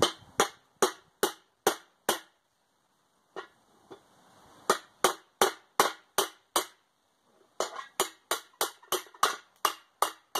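Hammer blows on the top of a steel pipe, driving it down through a hole in a propane-tank forge body. The sharp strikes come about two to three a second, in three runs with short pauses between them.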